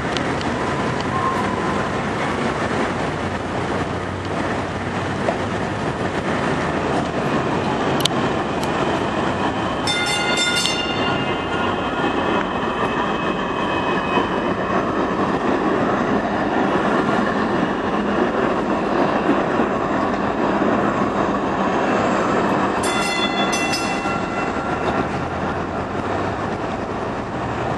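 A DART electric light-rail train rolling past close by: a steady rumble of steel wheels on rail. Two short spells of high-pitched ringing tones come through, about ten seconds in and again near the end.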